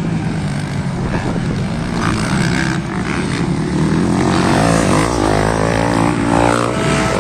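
Motocross bike engines running and revving, the pitch climbing and falling several times in the second half.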